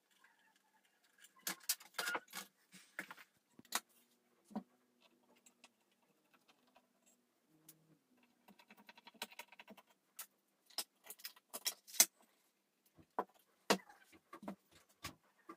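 Scattered sharp clicks and light metallic clattering from a computer motherboard with its tower CPU cooler being handled and turned over, the loudest knock about three quarters of the way through.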